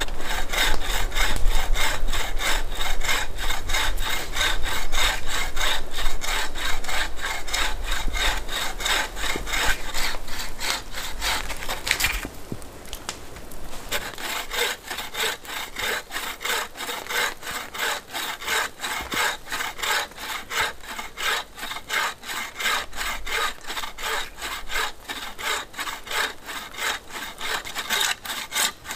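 Wooden-framed bow saw cutting through a mossy branch with quick, steady back-and-forth strokes, with a short pause about twelve seconds in before the sawing resumes.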